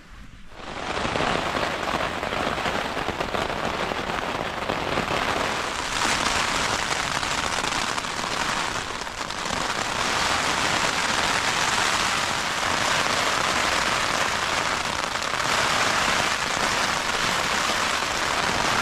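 Steady hard rain, with wind gusts, beating on a backpacking tent; the noise swells a little now and then. It begins about half a second in.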